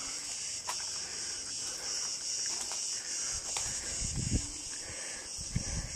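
Steady high-pitched chirring of insects, with a few low thumps and scuffs of footsteps on a rubble-strewn floor in the second half.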